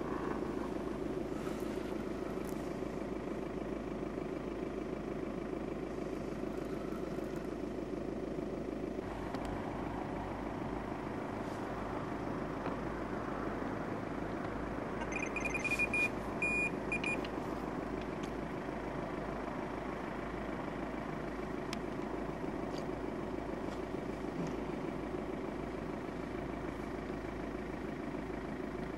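A steady low rumble, with a short run of high electronic beeps from a carp bite alarm about halfway through, while a hooked carp is being played.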